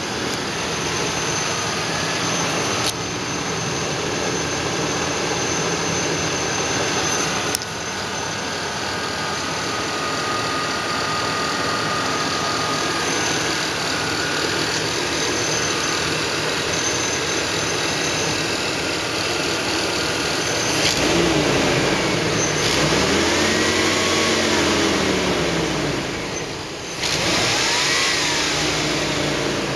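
Chevy Astro van's replacement engine running steadily at idle, then revved up and let back down a few times near the end.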